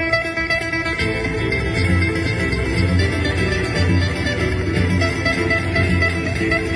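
Nylon-string cutaway acoustic guitar played fingerstyle, a busy plucked melody; about a second in, deeper bass notes join and the playing grows fuller.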